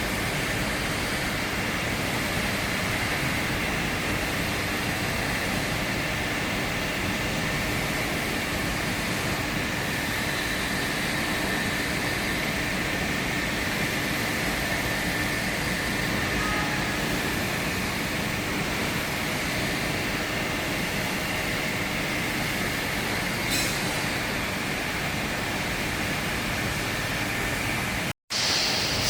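Tube ice machine's refrigeration equipment running: a steady mechanical hum and hiss with a few constant tones.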